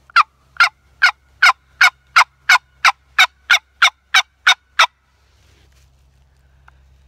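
Wooden turkey box call scraped with its paddle: a long, even series of about fourteen loud yelping notes, close to three a second, stopping about five seconds in.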